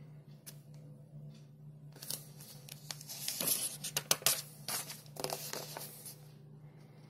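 Paper pages of a printed booklet being turned by hand, rustling and crinkling for about four seconds, loudest in the middle.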